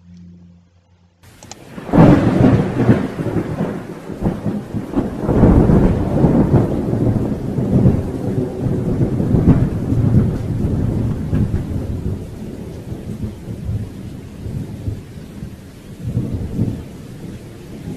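Thunderstorm: thunder cracks loudly about two seconds in and rolls on in long rumbles that swell again several times and slowly die down, over a steady hiss of rain.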